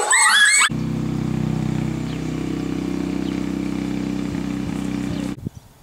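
Puppies whimpering and yipping with high rising cries for under a second. Then a steady low drone for about four and a half seconds, which cuts off abruptly near the end.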